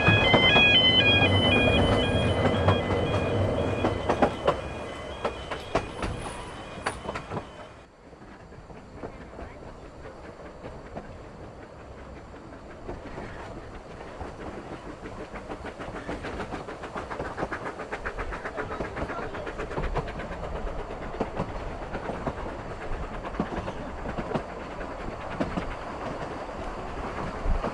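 Narrow-gauge railway carriage running along the line: a steady rumble with the clickety-clack of wheels over rail joints. It is loud at first, changes sharply about eight seconds in to a quieter ride, then slowly grows louder again.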